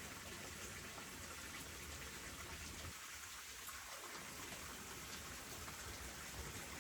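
Faint, steady patter and hiss of water, like rain or a trickle.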